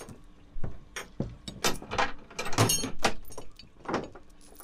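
Anchor chain clanking and rattling against the boat as the anchor and chain are fed over the side by hand: a series of sharp, irregular metallic knocks.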